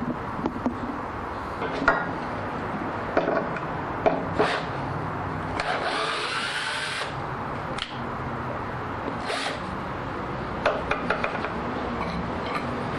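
Drill/driver backing out a screw in a few short bursts, one with a rising whine, among clicks and knocks of handling the wooden jig, over a steady low hum.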